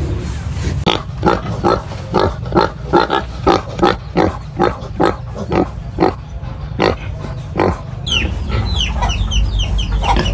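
Pigs grunting in a quick, even series of short calls, about two or three a second, which stops about eight seconds in. High, falling chirps follow near the end, over a steady low rumble.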